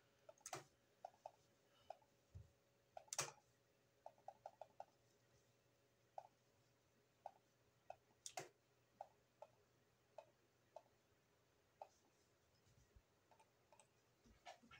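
Computer mouse clicking at irregular intervals while colours are picked and filled in a paint program: a string of soft clicks, with three louder, sharper clicks among them.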